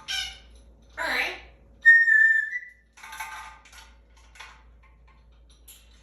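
African grey parrot vocalizing: a few short, noisy calls and one clear, steady whistle about two seconds in, held for under a second.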